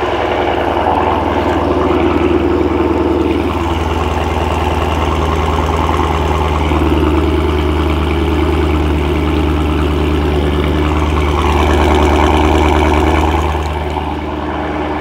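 2013 Dodge Challenger SRT8 392's 6.4-litre Hemi V8 idling steadily through its Corsa exhaust, heard close to the tailpipes. It is still at its raised idle just after start-up, loud before it settles down.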